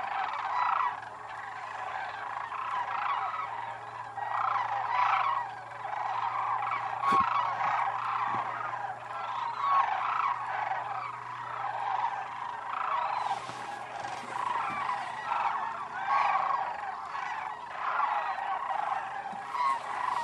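A large flock of sandhill cranes calling all together, many overlapping rattling calls that swell and ebb without a break.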